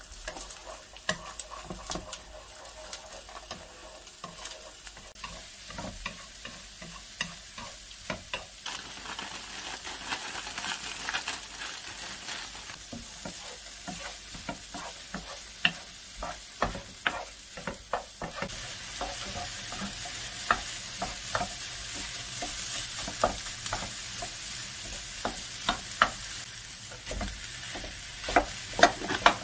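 Scrambled eggs and green onions sizzling in a frying pan as they are stirred, first with chopsticks and then with a wooden spatula that scrapes and taps against the pan many times. The sizzle grows stronger past the middle as cauliflower rice is stirred in.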